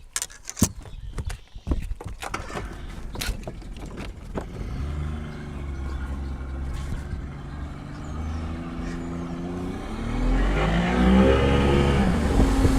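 A few sharp knocks and clicks, then a boat's outboard motor running from about four seconds in. Near the end it revs up, rising in pitch and getting louder, as the boat gets under way.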